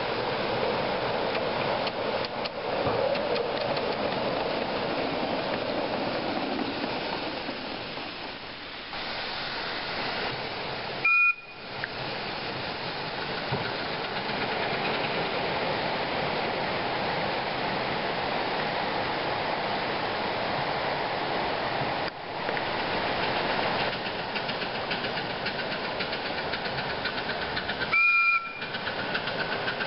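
Miniature live-steam locomotive running with a steady hiss of steam, sounding two short, high whistle blasts: one about eleven seconds in and one near the end.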